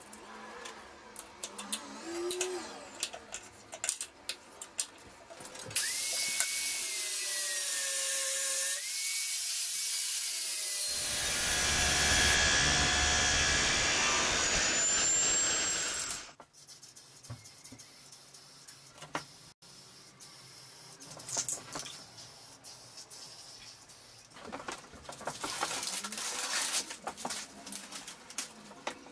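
Small metallic clicks and taps as a nut is worked onto a threaded steel bolt. About six seconds in, a power grinder's motor whines up and its abrasive disc cuts into steel for about ten seconds, loud and rushing, then cuts off suddenly. Near the end comes rustling and crinkling of paper.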